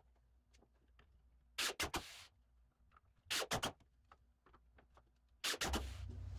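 Four short clusters of sharp clicks and knocks, about a second and a half to two seconds apart, from handling and screwing down wooden chip-rail trays.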